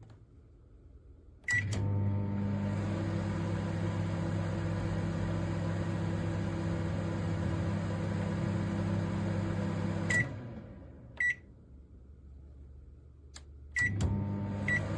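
Samsung MS23K3513AK solo microwave oven: a beep, then the oven starts running with a steady hum. The hum stops with a click and a beep about ten seconds in, and another beep follows. Near the end, clicks and beeps come again and the hum starts up once more.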